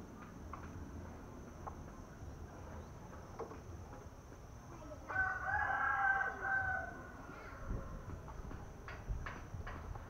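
A rooster crowing once, a single call of about two seconds starting about halfway through.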